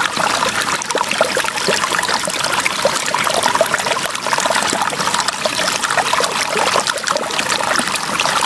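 Water trickling and splashing steadily, with many small crackling pops and spatters.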